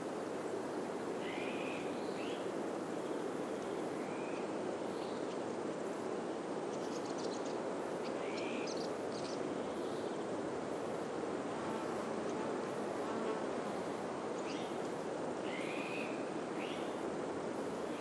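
Steady rush of wind through pine trees, with short chirps of a small bird every second or two, some in quick pairs.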